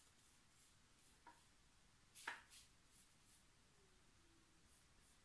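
Near silence with faint strokes of a paintbrush on canvas, and a sharper tap about two seconds in.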